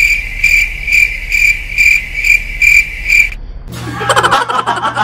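Cricket-chirping comedy sound effect marking an awkward silence: a steady high trill pulsing a little over twice a second, which cuts off abruptly about three seconds in.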